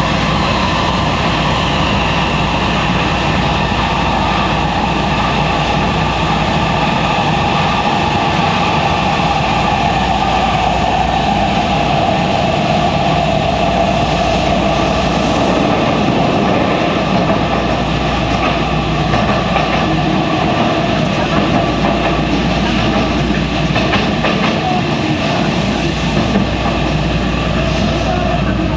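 Inside a motor car of an Osaka Metro Series 70 linear-motor subway train running at speed through a tunnel: a steady rumble from the wheels on the rails, with a whine of several tones from the drive equipment.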